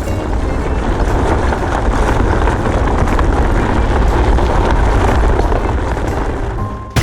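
Destruction sound effect: a long, low rumbling noise that holds steady for several seconds, then fades near the end.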